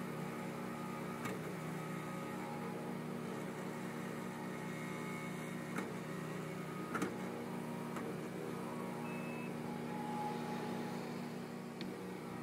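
Steady drone of a skid-steer loader's engine and a portable generator running together, powering a small compost screener. A few short knocks come through it.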